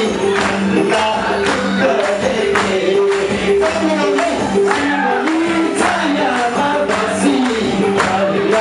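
A man singing a Nepali song into a microphone over loud amplified band backing, with a steady percussion beat and a held low note underneath.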